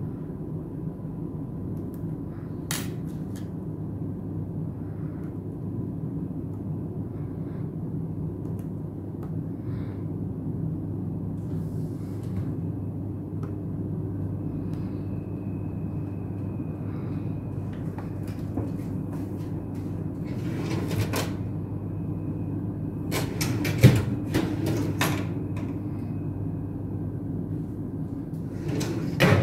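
Small clicks and taps of a precision screwdriver and phone parts as tiny screws are fitted back into a smartphone, most of them in the last third, over a steady low background hum.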